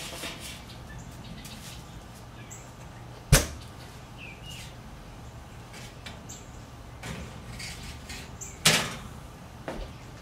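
A Masterbuilt electric smoker's door being opened and shut while a metal muffin pan is loaded onto a rack inside: two sharp clunks, about three seconds in and near the end, with smaller knocks and clicks between.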